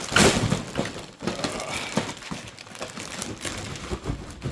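Plastic LEGO parts bags and cardboard packaging being handled: crinkling and rustling with small knocks, loudest just after the start.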